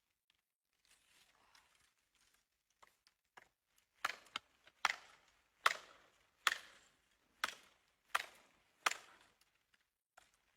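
Wood being chopped: about eight sharp strikes at roughly one a second, beginning about four seconds in after some soft rustling.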